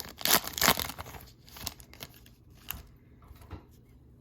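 Foil trading-card pack wrapper being torn open and crinkled, loudest in the first second and a half, then a few faint rustles and clicks as the cards are handled.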